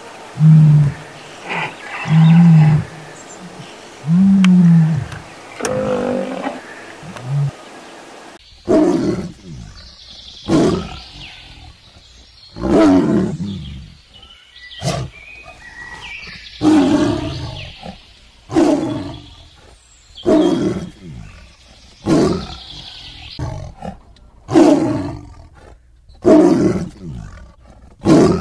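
A lioness giving short, low calls, then, from about eight seconds in, tigers roaring: loud, short roars about every two seconds.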